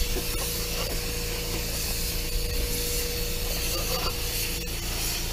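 Gravity-feed paint spray gun hissing steadily as it sprays touch-up paint, with a steady hum underneath that stops with a click near the end.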